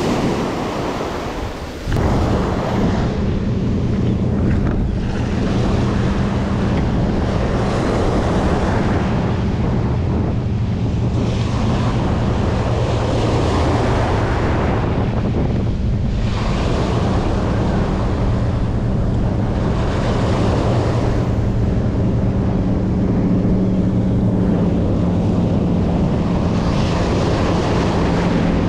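Ocean surf breaking and washing up the beach in repeated surges every few seconds, with wind buffeting the microphone. A steady low hum runs beneath it from about two seconds in.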